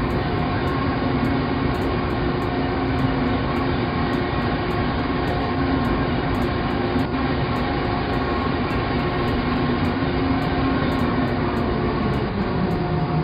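Steady heavy-vehicle engine rumble with a few steady humming tones, running unbroken.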